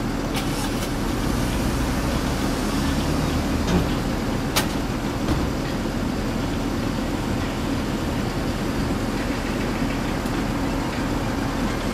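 Steady low rumble of street traffic and vehicle engines, with one sharp click about four and a half seconds in.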